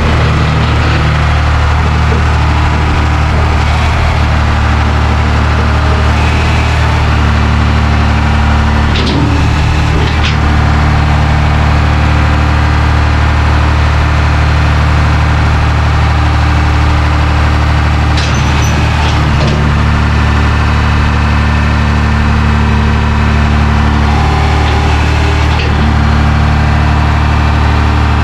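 John Deere 2840's diesel tractor engine running steadily while the front-end loader bucket is raised, dumped and lowered, trying out the hydraulics after a cleaned screen and new filter. A few short knocks come about nine to ten seconds in and again around eighteen to nineteen seconds.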